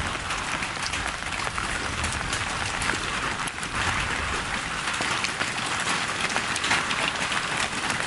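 Steady rain falling, a dense patter of many small drops hitting wet ground and leaves.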